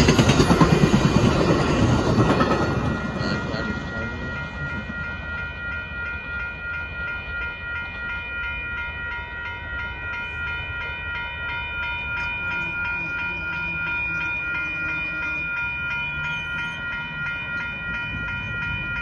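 Bi-level Amtrak passenger cars rumbling and clacking over the rails as the tail of the train clears the crossing, fading within the first few seconds. Then the grade-crossing warning bell rings on its own, a rapid, steady, evenly pulsing ding.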